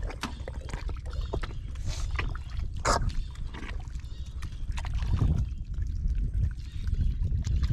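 Rubber boots squelching and sucking in soft wet mud as she wades across a mudflat, with short wet splats and clicks from each step over a steady low rumble. One louder splash about three seconds in.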